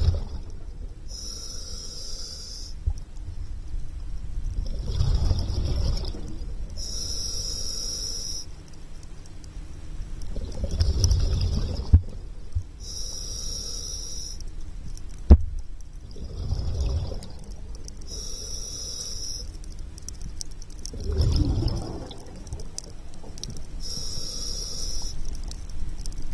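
Scuba diver breathing through a demand regulator: a hissing inhale followed by a rumbling, bubbling exhale, about five breaths spaced roughly five seconds apart. A sharp click about halfway through.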